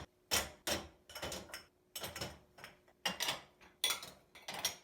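Household objects being handled and set down during cleaning: a run of separate knocks and clatters, some with a short ring, coming in clusters every half second or so.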